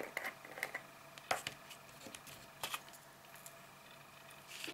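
Small plastic jar of white embossing powder being unscrewed and handled over paper: a few scattered light clicks and taps of the lid and jar, the loudest near the end.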